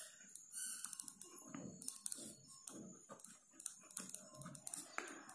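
Pen writing on paper: faint, irregular scratches and small taps from the handwritten strokes.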